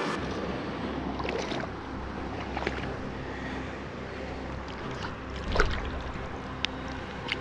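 Steady rush of wind and flowing river water, with a soft knock about five and a half seconds in.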